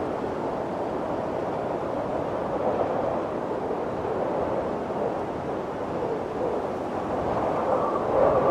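Snowstorm wind blowing in a steady rush, growing a little louder near the end.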